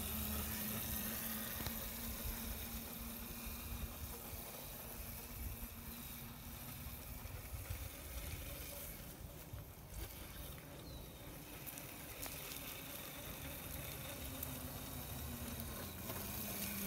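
Razor MX250 electric dirt bike's motor giving a steady low hum as it rides along a sidewalk. The hum fades as the bike moves off and grows louder again near the end as it comes back close.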